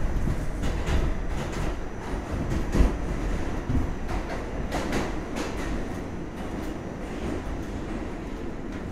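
Subway train running: a steady low rumble from wheels on track, with irregular knocks and rattles of the car, the loudest a little under three seconds in.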